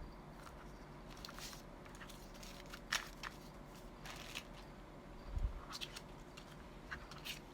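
Paper and craft materials being handled at a work table: a scatter of short rustles and light taps.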